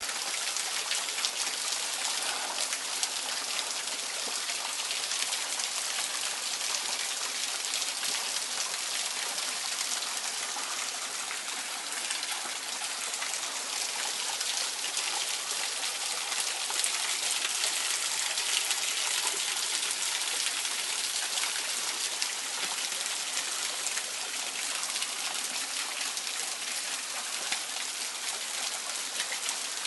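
Small waterfall trickling off a rock ledge and splashing onto stones below: a steady, unbroken splashing.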